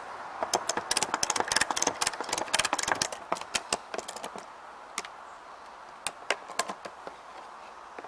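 Ratchet strap being cranked tight around a beehive: a quick run of sharp ratchet clicks for about four seconds, then a few single clicks spaced out as the strap pulls tight.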